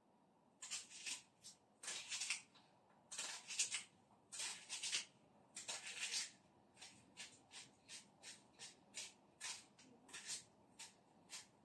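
Small knife slicing through a crisp dry onion held in the hand, each stroke a short crunch. The strokes are longer and spaced about a second apart at first, then come quicker and shorter, about two a second.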